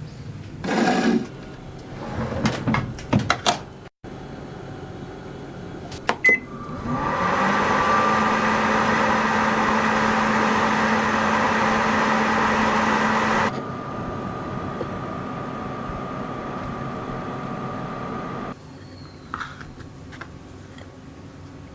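Microwave oven running with a steady hum, heating a marshmallow on a chocolate cookie to soften it. Clicks and knocks come before it starts, and the hum drops to a lower level partway through, then cuts off near the end.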